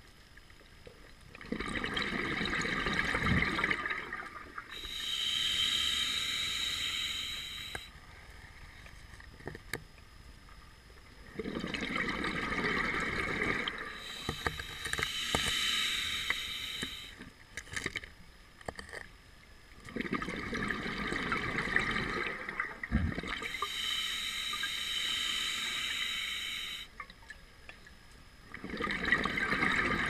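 Scuba diver breathing through a regulator underwater: three slow breaths about nine seconds apart. Each is a hiss of air drawn through the regulator and a gush of exhaled bubbles, with short quiet pauses between breaths and another breath starting near the end.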